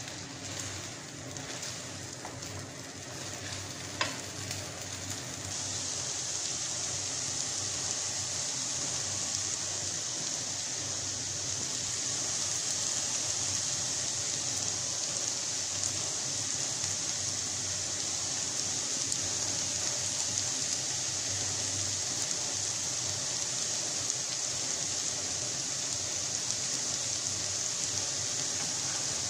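Instant noodles with carrots and shrimp sizzling in a frying pan, a steady hiss that grows louder about five seconds in. A spatula scrapes and stirs through the first few seconds, with one sharp click near four seconds.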